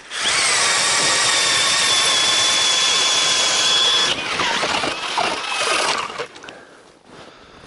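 Cordless drill-driver spinning an ice auger through river ice: a loud, steady high whine for about four seconds, then the pitch wavers and drops before it stops about six seconds in.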